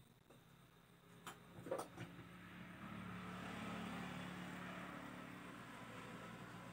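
A motor vehicle passing by, its engine noise swelling over a couple of seconds and then slowly fading. Two light knocks come just before it, between one and two seconds in.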